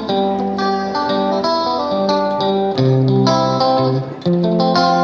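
Background music led by a plucked guitar, playing a rhythmic pattern of changing notes.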